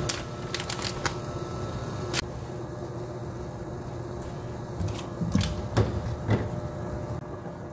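Dried anchovies dropped into a stainless steel pot of water, clicking sharply against the metal, then a chunk of radish put in with a few low splashing thuds about five to six seconds in.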